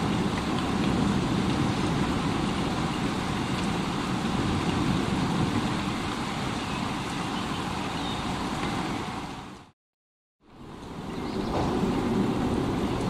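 Steady rain with a low rumble underneath. About ten seconds in it fades out to a moment of silence, then fades back in.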